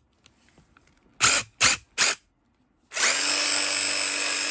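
DeWalt DCF887 cordless impact driver driving a DWACPRIR copper pipe cutter attachment with no pipe in it. The trigger is blipped three times in quick succession, then held for a steady, even whir near the end.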